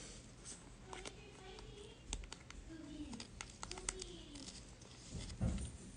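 Faint clicks and light scraping of a thick trading card being worked into a rigid plastic top loader that is too small for it.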